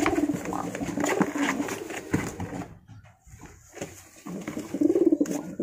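Domestic pigeons cooing in low, wavering rolls, pausing briefly about halfway and starting again near the end. Short scuffs and rustles come from a pigeon being lifted out of a cardboard box.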